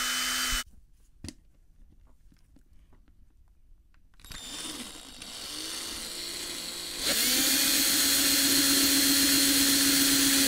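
Small electric drill boring a hole through a cast epoxy-resin pendant. It stops about half a second in, starts up again around four seconds in, and from about seven seconds runs at a steady full speed.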